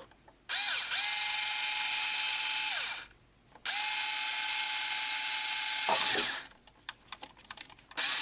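Small 4-volt cordless electric screwdriver used as a drill, boring through an RC truck's body shell in three runs: twice it spins up with a rising whine, holds steady for about two and a half seconds and winds down, and a third run starts near the end. A few light clicks of handling come between the runs.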